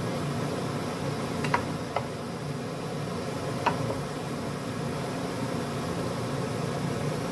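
Cream sauce simmering in an electric skillet with fish fillets: a steady bubbling hiss. Three short, high squeaky blips stand out, in the first half.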